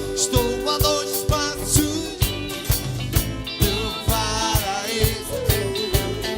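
A song with singing over a steady drum beat, about two strikes a second.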